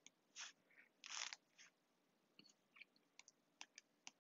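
Near silence broken by faint, scattered ticks of a stylus tapping a tablet's glass screen, with two short soft noise bursts about half a second and a second in.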